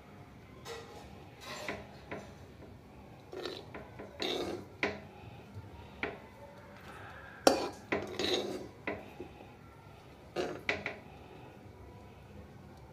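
A steel ladle clinking and scraping against the pot and serving bowl in short bursts as thick curry is scooped and served. The loudest knock comes just after the middle.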